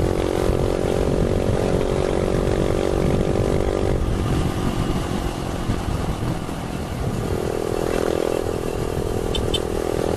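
Yamaha YBR 125's single-cylinder four-stroke engine running at a steady cruising speed on the road, over a low rumble of wind and road noise. Its steady drone fades into the rumble about four seconds in and comes back about seven seconds in.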